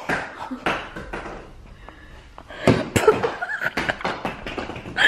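A string of sharp, irregular knocks and bumps, with brief snatches of voice in between.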